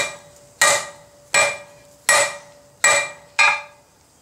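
Cross-peen hammer striking a red-hot flat steel bar over the edge of the anvil, drawing the bar out. There are about five even blows, roughly three-quarters of a second apart, each ringing briefly. The blows stop about three and a half seconds in.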